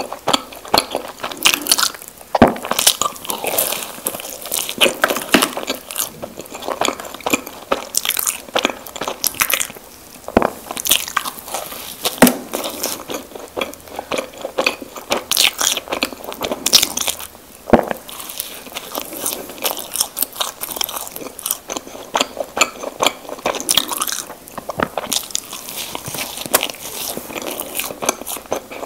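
Close-miked mouth sounds of Krispy Kreme doughnuts being bitten and chewed: a steady run of wet clicks and smacks, with a few sharper bites.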